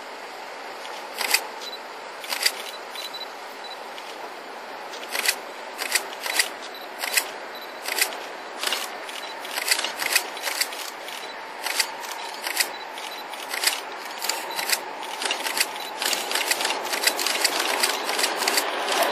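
Sharp clicks at irregular intervals, more and more often as time goes on, over a steady rushing sound; near the end the rush grows louder as the four-locomotive freight train draws near.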